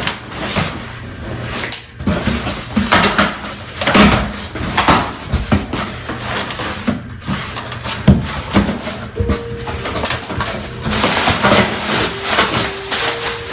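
Rustling and scattered knocks from plastic planter pots and packaging being handled. Twice near the end a brief steady tone sounds.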